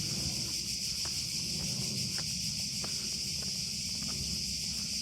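Steady, high-pitched buzzing chorus of cicadas in summer heat, with faint light ticks, likely footsteps on the trail.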